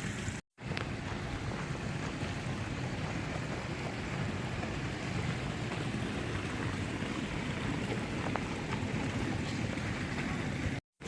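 Steady rushing wind buffeting the microphone.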